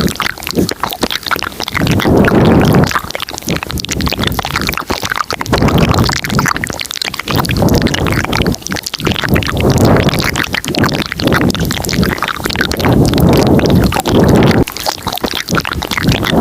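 Layered close-miked ASMR mouth sounds: a dense stream of wet clicks and smacks, with a louder swell every two to three seconds.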